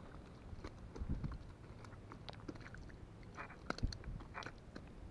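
Irregular small clicks, taps and crackles close to the microphone, with a sharper knock and two short scratchy rustles past the middle.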